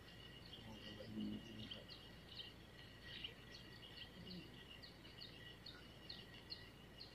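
Faint mangrove riverbank wildlife ambience: a steady high insect hum, with a regular run of short, falling chirps about twice a second.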